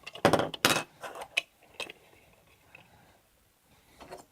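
Small hard game pieces clattering and knocking together, a quick cluster of clicks followed by a few single knocks in the first two seconds.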